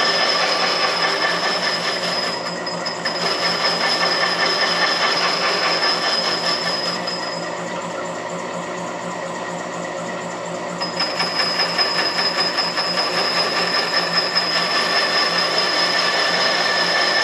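A machine resurfacing the face of a steel sawmill saw collar in a shop-made jig: steady running with a constant high whine and a rough, grainy cutting noise. The whine drops out and the noise eases a little past the middle, then both pick back up near the end.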